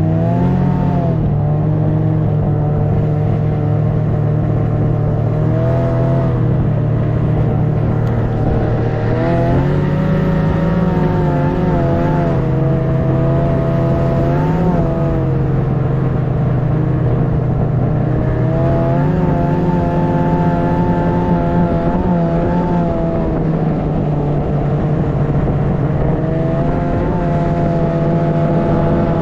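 Snowmobile engine running continuously under way, its pitch rising and falling with the throttle every few seconds.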